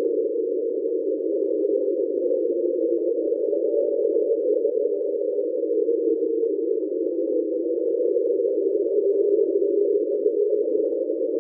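Hydrophone recording of the sound known as 'Train': an iceberg scraping along the sea floor, heard as a steady drone of several close-packed tones.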